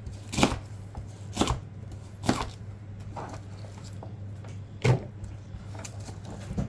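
Chef's knife cutting through bok choy stalks and knocking on a plastic cutting board: sharp single cuts about one a second at first, then a couple more spaced further apart. A steady low hum runs underneath.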